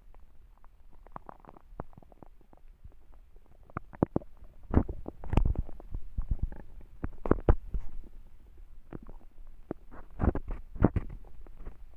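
Empty human stomach growling from hunger: faint low rumbling at first, then from about four seconds in an irregular run of short, louder gurgles in clusters.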